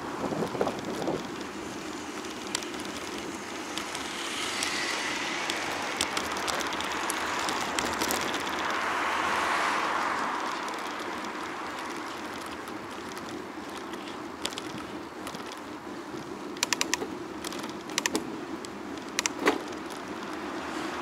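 Street and wind noise heard from a moving bicycle: a steady rush of traffic and air that swells for several seconds in the middle, with a run of sharp clicks near the end.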